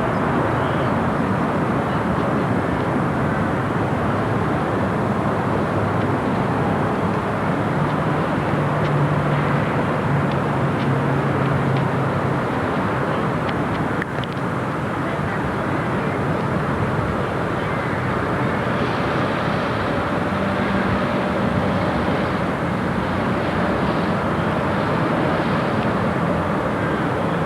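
Steady drone of a vehicle in motion, with a low engine hum that comes and goes.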